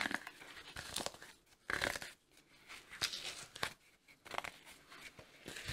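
Screw cap being twisted off a glass bottle of leather dye by gloved hands, the dried dye crusted on the neck and threads crunching and crackling in short scratchy bursts, about one a second.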